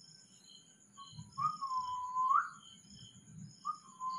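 A man whistling two short whistles, each about a second long: a steady note that dips slightly and then slides up at the end. A steady high chirring runs behind them.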